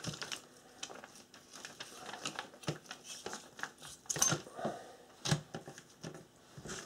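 Kitchen knife filleting a pike on newspaper: irregular short scrapes and clicks as the blade works along the fish's backbone.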